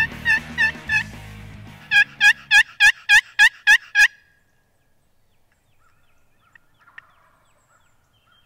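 Wooden turkey box call worked in hen yelps: four yelps over faint music, then after a short pause a louder run of about eight quick yelps, about three a second, that stops sharply about four seconds in. Faint bird chirps follow in the quiet.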